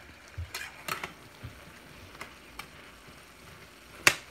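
A spatula stirring and turning vegetables in a stainless-steel pan over a faint sizzle. There are scattered light clicks and scrapes against the pan, and one loud clack near the end.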